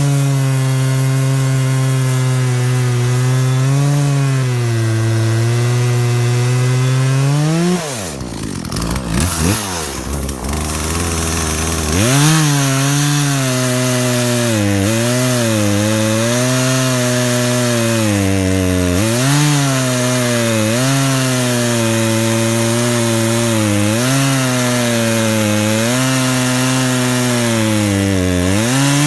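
Poulan PL3314 33cc two-stroke chainsaw cutting through a large log at full throttle. About eight seconds in the engine revs up, falls to idle for a few seconds, then comes back up to full speed, its note sagging again and again as the chain bites into the wood.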